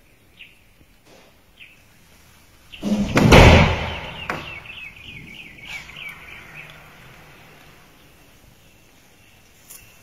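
A loud, rumbling burst of noise about a second long, about three seconds in. It is followed by a rapid run of high chirps, like a bird's trill, over quiet outdoor bush ambience.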